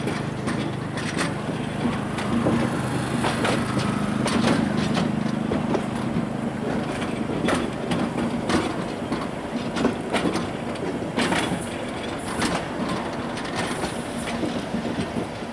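Railway detonators (fog signals) going off with sharp cracks under the wheels of a Southern Region 4-VEP slam-door electric train pulling out, about a dozen at irregular intervals, over a steady low hum from the train.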